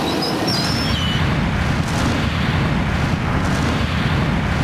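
Rock-blasting charges detonating in a rapid series along a canal bank, heard as a loud, steady low rumble with scattered cracks.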